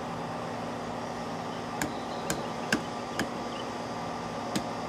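A large knife striking a fish cleaning board as it chops through a black crappie to take off the head: five short, sharp knocks at uneven intervals over a steady hum.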